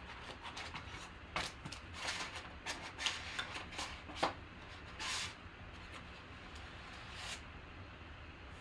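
Cardboard trading-card box being opened and handled: faint, scattered rubs, scrapes and taps, with a longer sliding scrape about five seconds in.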